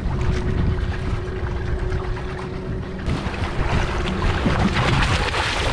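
Wind buffeting the microphone over water slapping against the outrigger boat, with a steady low hum. From about three seconds in, splashing grows louder as a hooked tuna thrashes at the surface beside the hull.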